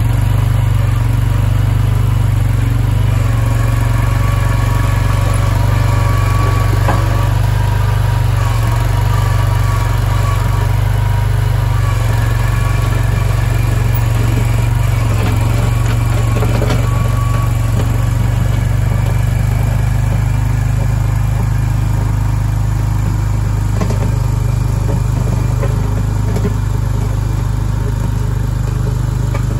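Boxer 427 mini skid steer's engine running steadily, fitted with a new muffler.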